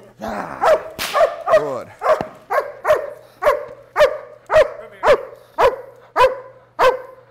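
Doberman barking in a steady rhythm, about two sharp barks a second, somewhat ragged at first and then evenly spaced. This is the rhythmic barking of a protection dog's bark-and-hold, barking at the decoy without biting.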